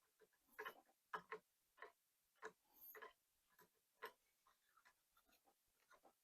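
Faint, irregular light clicks and taps of hand tools and small metal parts being handled while a power steering valve body is taken apart.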